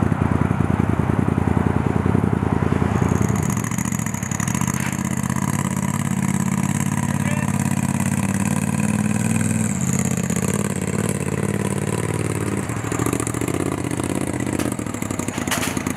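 Race side-by-side UTV's engine running as it is driven up aluminium ramps onto a flatbed trailer: a lumpy, pulsing idle at first, then held at a steady higher speed from about three seconds in, easing and changing around ten seconds in.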